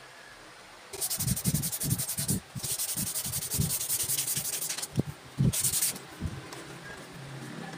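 Sandpaper rubbed briskly by hand over a wooden knife handle in rapid back-and-forth strokes. It starts about a second in and breaks off briefly twice, with a short last spell before it eases off near the end.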